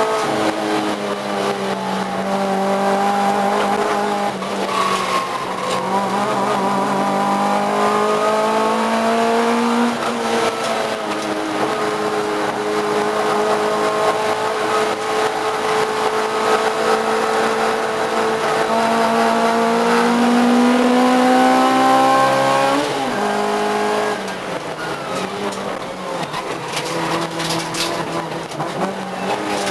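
Race car engine heard from inside the cabin, running hard under load. Its pitch climbs slowly and drops back at gear changes about four and ten seconds in. After a long climb it falls away sharply about 23 seconds in, and from then on it runs lower and quieter.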